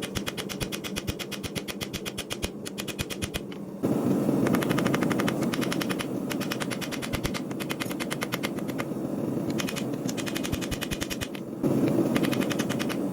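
Rapid, evenly spaced hammer blows on steel, several a second, over a steady lower rumble that gets louder about four seconds in and again near the end.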